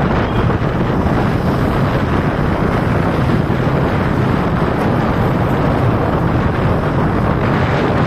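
Steady rush of wind on the microphone of a moving vehicle, with the vehicle's running and road noise beneath it.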